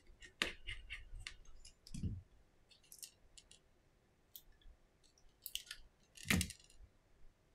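Small clicks, taps and light knocks of an opened smartphone's plastic frame and parts being handled on a silicone repair mat. Louder knocks come about half a second in and again near the end, with a soft thud around two seconds.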